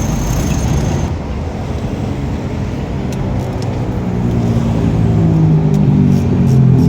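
Vehicle engine running with a low rumble, its deeper pitched hum growing steadily louder over the second half.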